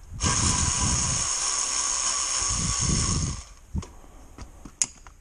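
Ratchet wrench clicking rapidly for about three seconds as it loosens a hose clamp screw, then a few single clicks.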